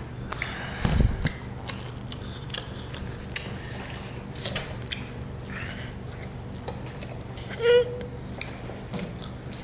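A man eating grilled chicken with his hands: scattered wet smacks and clicks of chewing and tearing meat over a steady low room hum, with a low thump about a second in and a short murmured vocal sound a little before the end.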